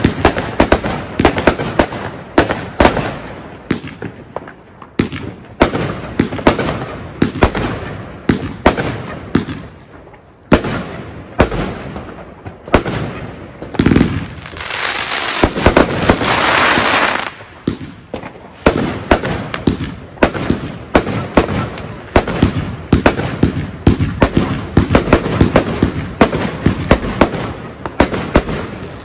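Pyro Specials 'Kiss from Hell' firework firing a rapid, dense series of shots and bursts. A few seconds of continuous hissing come about halfway through.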